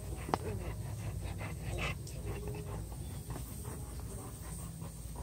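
Three-week-old Labrador puppies panting softly, with a sharp click shortly after the start.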